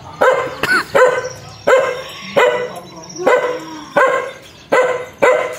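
Chained dog barking fiercely in a steady series of about eight sharp barks, roughly one every two-thirds of a second.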